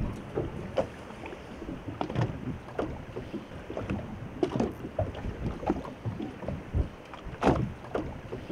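Small waves slapping and knocking irregularly against the hull of a fishing boat adrift on the river, with no motor running.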